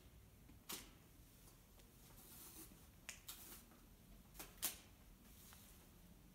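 Camera shutter clicking about five times against faint room tone: once early, then twice in quick pairs a second or so apart.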